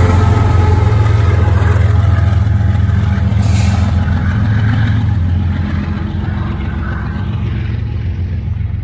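Diesel-electric freight locomotive running past at close range: a steady low engine drone with rolling rumble. About five seconds in, the drone weakens and the sound fades gradually as the locomotive moves away.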